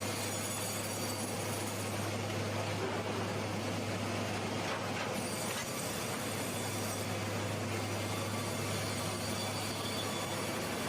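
Steady machinery noise with a constant low hum, unchanging throughout.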